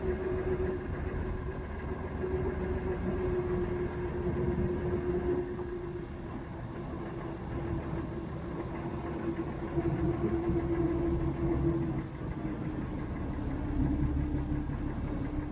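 Tour boat's engine running steadily while cruising: a low rumble with a steady hum that drops a little in pitch near the end.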